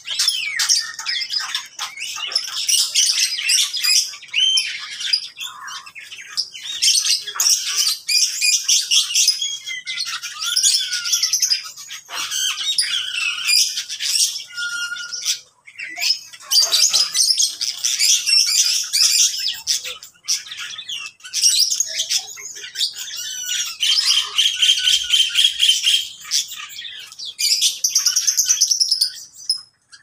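A mixed flock of small aviary birds chirping and calling together: a near-continuous chatter of high chirps, squawks and trills, with brief lulls.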